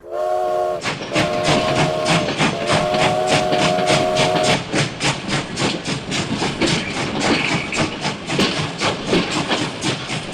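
Steam-locomotive-style chuffing, an even beat of about four puffs a second. A steady, chord-like steam whistle sounds over it for the first four and a half seconds, with a short break just before the one-second mark.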